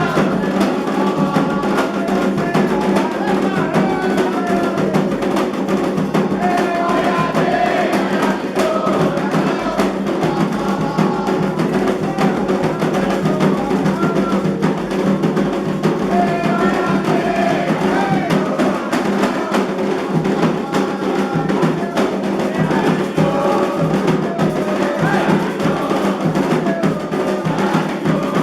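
Candomblé ritual music: atabaque hand drums played in a dense, driving rhythm under group singing of the chants.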